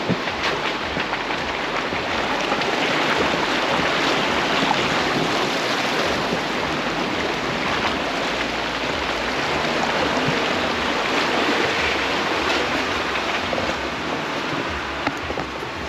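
Jeep Wrangler JL Rubicon on aired-down 37-inch Nitto Trail Grapplers driving slowly on the dirt trail: a steady rush of noise with the engine low underneath and small scattered ticks.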